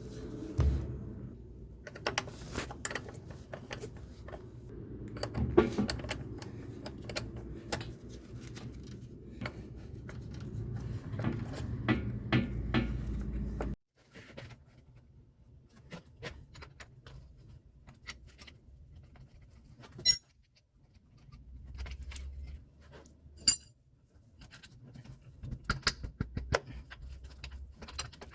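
Metal hand tools and parts clicking and clinking during hand work on a truck, likely wrenches and sockets. The sounds come as scattered clicks, with a few sharp, ringing metal clinks in the second half.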